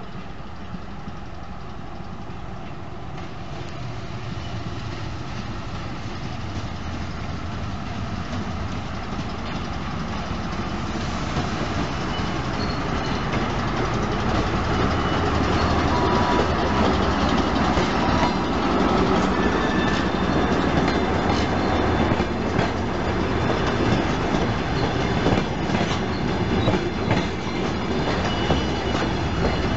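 DR1A diesel multiple unit arriving: its diesel engine and running gear grow steadily louder as it approaches. About two-thirds of the way in, the wheels start clattering over the rail joints as the carriages roll slowly past.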